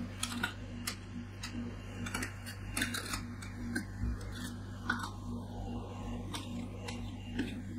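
Metal spatula scrapers tapping and scraping on a frozen ice-cream cold plate as coffee ice cream is spread and pressed into a thin sheet: irregular sharp clicks and scrapes over a steady low hum.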